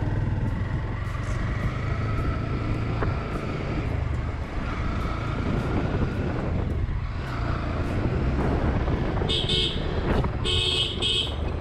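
Honda X-Blade motorcycle's single-cylinder engine running steadily as the bike rides along, with road and wind noise. Near the end a horn beeps twice.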